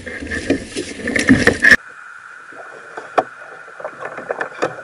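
Knocks and handling noise aboard a kayak over a low rumble. Just under two seconds in, the sound cuts abruptly to a quieter steady hiss with scattered sharp clicks and taps.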